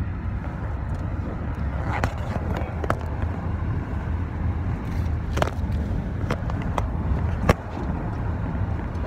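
Passenger car's road and engine noise heard inside the cabin, a steady low rumble. Several sharp clicks and taps cut through it, the loudest about three-quarters of the way through.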